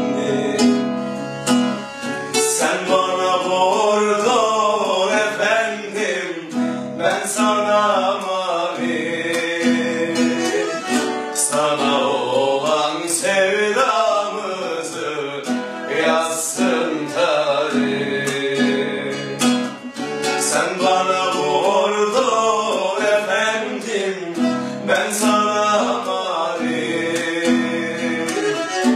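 Two men singing a melody together, accompanied by a strummed and plucked classical guitar and a Black Sea kemençe (small bowed fiddle).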